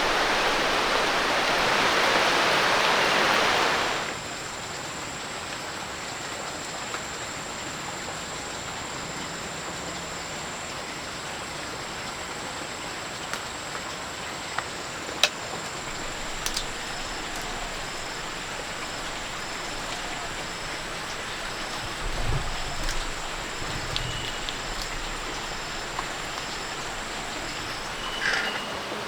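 Flowing stream water, loud and close for the first four seconds, then cutting to a quieter, steadier stream. Over the quieter part a thin high steady tone runs, with faint chirps repeating about twice a second.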